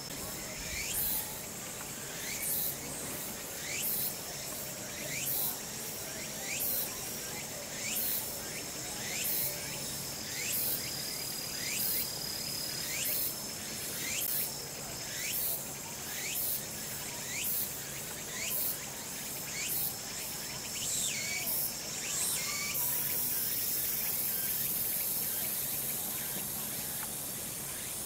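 Insect song: a short rising phrase repeated about every second and a half, ending in a steady high buzz a little after twenty seconds.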